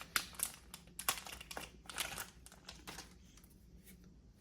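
Pokémon trading cards and their booster pack being handled: irregular light clicks and crinkly rustles as cards are flipped through, thinning out after about three seconds.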